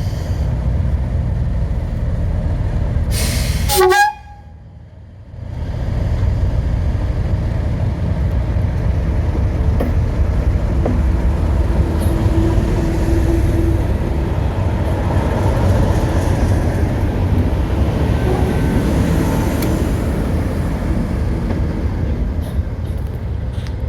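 Preserved diesel locomotive running, a steady low rumble; it breaks off for about a second and a half around four seconds in, then carries on.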